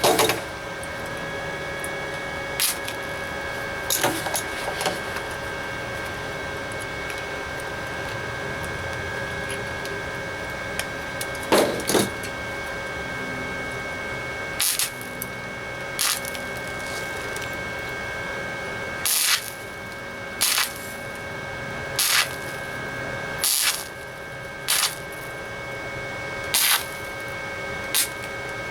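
Flux-core wire welder laying short stitch welds on thin sheet steel: about a dozen brief arc bursts, each roughly half a second, coming every one to three seconds and more often in the second half, over the welder's steady hum.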